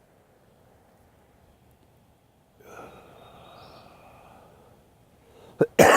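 A person's long, soft breath lasting about two seconds, then a loud cough or throat-clearing breaks out right at the end.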